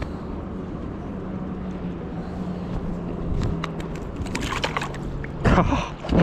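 A boat's motor running with a steady low drone, its pitch sagging slightly about halfway through. Near the end come scattered clicks and two loud rustling bursts.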